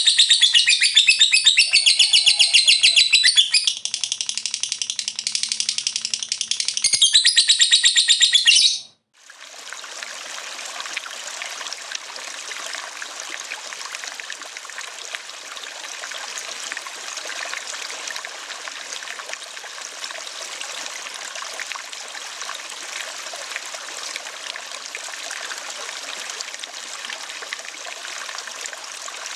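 A lovebird's long, rapid chattering song (ngekek), loud and continuous, which cuts off suddenly about nine seconds in. A steady sound of flowing stream water follows.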